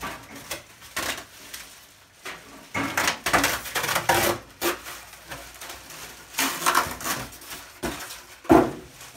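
Packing tape being pulled and torn off a new tool chest's packaging, in irregular rasping bursts, with a sharp knock about 8.5 seconds in.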